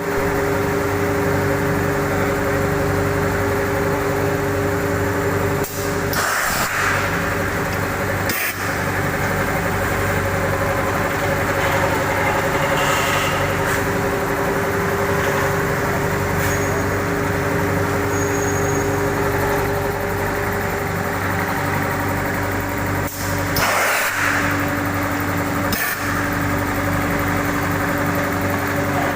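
Egg tray pulp moulding machine running with a steady mechanical hum, broken by several short bursts of hiss.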